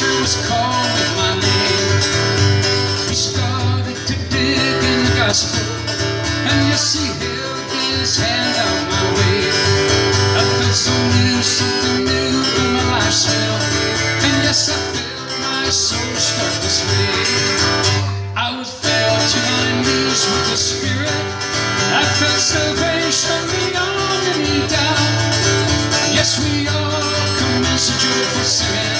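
Two guitars, one of them an acoustic, played live in a country and bluegrass style with a steady strum, briefly dropping off about two-thirds of the way in.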